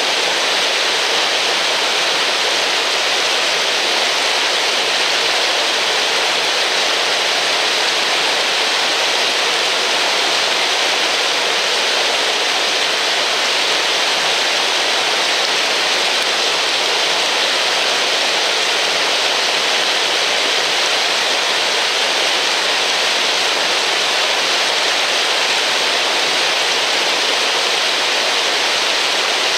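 Mountain stream water rushing and splashing down a smooth rock chute, a natural water slide, heard up close as a loud, steady hiss-like roar.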